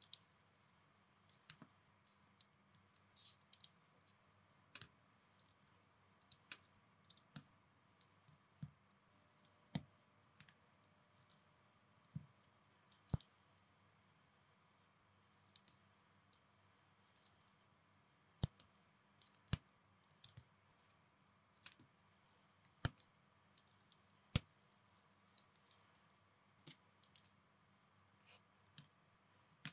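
Plastic building bricks clicking and snapping together as pieces are pressed on and handled. The clicks are scattered and irregular, with a few louder snaps spread through.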